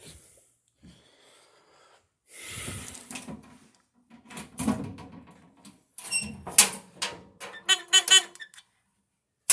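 Clicks, knocks and rattles of hands working at a Simplex 4005 fire alarm control panel as it is reset to normal after a test, with a quick run of pulsing tones near the end.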